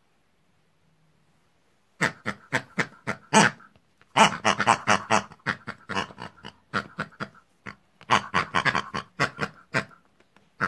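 A rapid run of short pig-like grunts and squeals, voicing toy pigs in place of words, starting about two seconds in and going on in quick bursts for about eight seconds.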